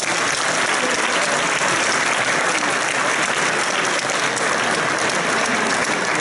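Audience applauding in a sports hall, steady throughout and tailing off near the end.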